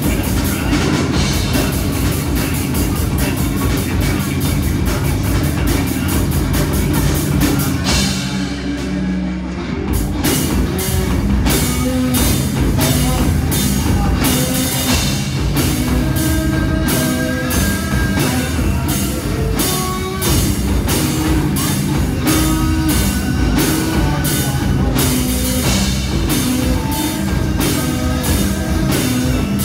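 Live rock band playing loud: electric guitar, bass guitar and drum kit. About eight seconds in, the drums and cymbals stop for about two seconds while a low note rings, then the full band comes back in.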